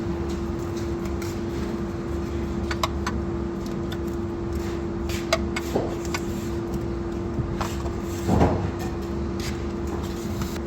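Scattered short metallic clicks and knocks of tools and CVT transmission parts being handled and fitted, the loudest about eight seconds in, over a steady workshop hum with one constant mid-pitched tone.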